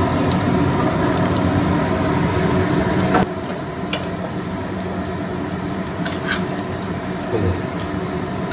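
Marinated mutton pieces frying in hot oil in an aluminium kadai: a dense sizzle that drops off sharply about three seconds in, then a quieter steady sizzle with a few clinks of a metal spatula against the pan.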